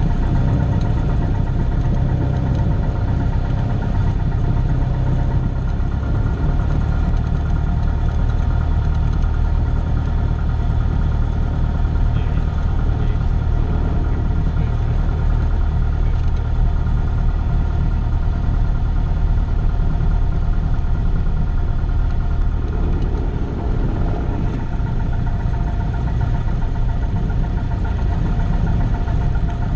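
Cessna 172's piston engine and propeller droning steadily, heard inside the cockpit, with a slight change in its note about three-quarters of the way through.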